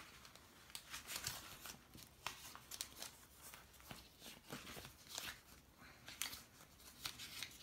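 Faint rustling and small scratchy ticks of paper sticker sheets being handled and stickers peeled, irregular and scattered.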